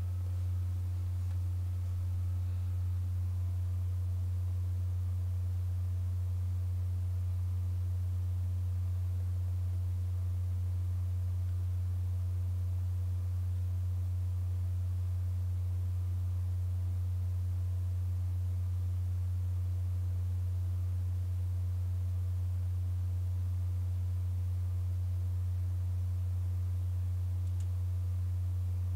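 A steady, unchanging low hum, with fainter held tones above it that come and go.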